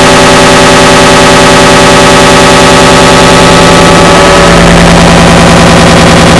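An error sound effect layered on itself an enormous number of times, heard as a loud, heavily clipped wall of distorted noise with fast pulsing. About four seconds in, the texture thins and a steady low drone comes forward.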